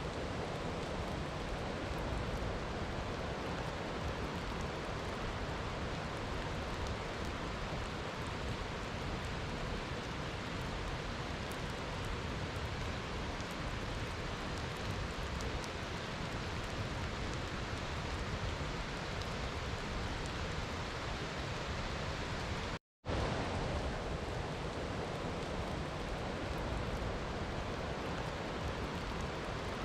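Steady, even rainfall with faint ticks of single drops. It cuts out to silence for a moment about three quarters of the way through, then resumes unchanged.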